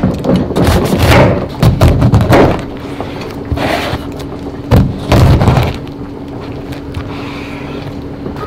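Kitchen knife cutting through a whole pineapple on a wooden cutting board: repeated crunching strokes through the tough rind and the blade knocking on the board. Strokes come thick and fast for the first two seconds or so, then a few heavier cuts about four to five seconds in, and fewer near the end.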